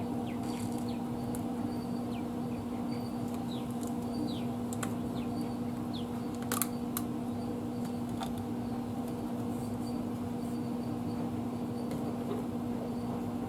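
Steady machine hum, with scattered light clicks and taps and one sharper click about six and a half seconds in.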